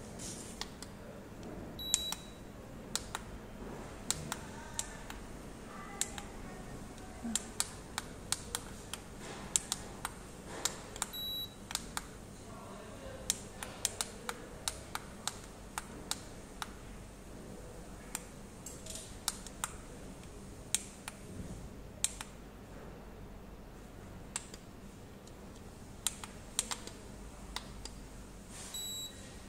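JZK-601 infrared forehead thermometer's plastic buttons and trigger clicking again and again as it is handled, with its short high beep sounding three times: about two seconds in, about eleven seconds in, and near the end.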